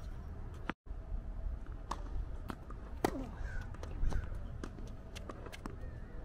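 Tennis ball being struck by rackets and bouncing on a hard court during a rally: scattered sharp pops over a low outdoor rumble, with a brief dropout about a second in where the recording cuts to the next point.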